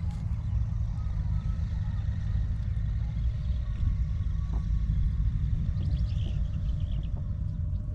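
Wind buffeting the microphone as a steady low rumble, with a few faint bird chirps about six seconds in.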